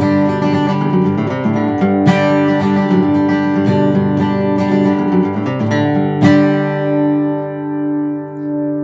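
Old Washburn acoustic guitar flatpicked with a pick, playing a quick bluegrass melody in single notes. About six seconds in, a full chord is struck and left to ring out and fade.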